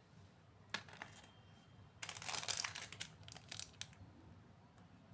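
Packaging crinkling as it is handled and opened: a single click, then a burst of crackling about two seconds in, followed by a few sharp clicks.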